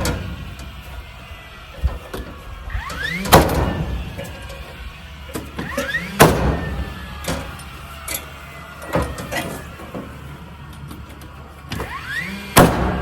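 Cordless nail gun fastening wooden siding boards. Each shot is a short rising whine as the tool spins up, then a sharp bang as the nail is driven. There are three shots, the last near the end, with a few lighter knocks in between.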